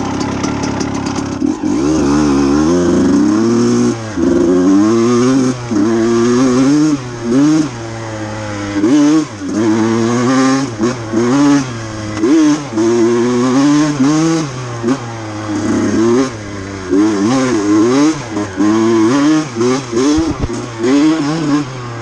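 Small two-stroke KTM dirt bike engine ticking over, then revving up about a second and a half in as the bike pulls away, its pitch rising and falling again and again as the throttle is opened and eased off.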